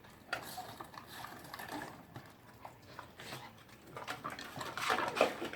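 A dog eating: irregular small clicks and chewing noises, louder for a moment near the end.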